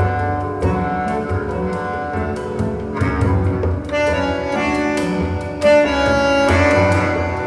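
Instrumental music with sustained pitched notes and a strong low bass line, played back over Verity Audio's new floor-standing hi-fi loudspeakers.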